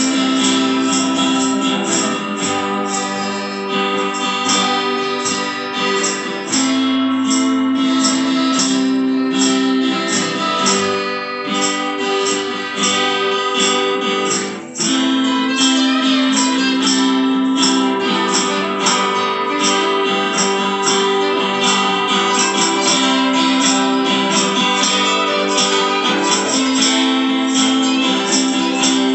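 Two acoustic guitars strummed together in a steady rhythm, an instrumental passage with no singing, with a very brief break about halfway through.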